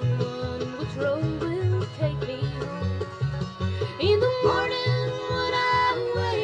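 Background music with a steady bass beat and held melody lines.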